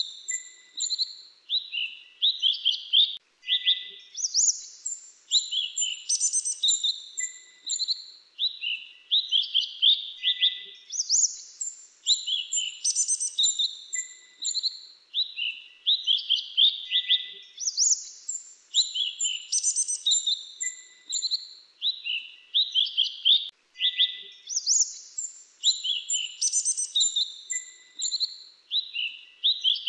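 Mantenan dagu kelabu, a small songbird, singing a lively song of rapid high chirps and short trills. Near-identical phrases come back about every six to seven seconds.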